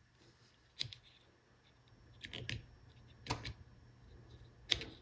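Two N-scale snap-switch turnout machines, wired together to one push button and fired straight from the power supply, throwing with sharp clicks together with the button's clicks, about half a dozen in all, some in close pairs. Fired this way the pair draws about 1.4 amps, enough to burn the machines out if the button is held down.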